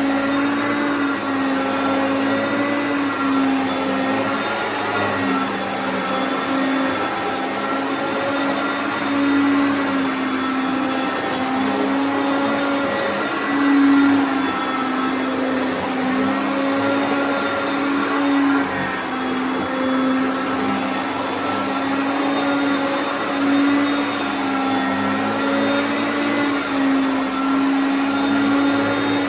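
Hoover Concept upright vacuum cleaner running steadily as it is pushed over carpet. It makes a continuous motor whine whose pitch wavers slightly up and down.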